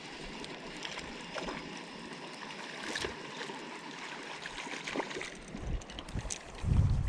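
Water lapping and trickling against a boat's hull, with a few small knocks and ticks.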